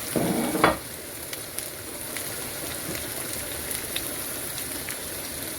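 Chopped vegetables tipped into a pot of frying tomato and onion sauce, a brief loud rush in the first moment, then steady sizzling with small scattered pops.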